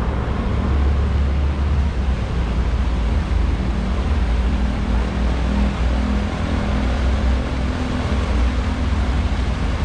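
Fountain jets splashing steadily into the basin, an even rushing noise over a heavy low rumble.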